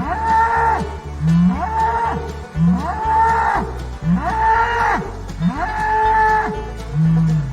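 An ox mooing over and over: about five similar calls, evenly spaced roughly a second and a half apart.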